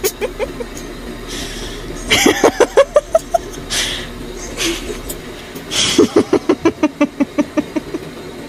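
Stifled giggling: two bouts of quick, breathy laughter pulses, the first rising in pitch, with hissing breaths between them.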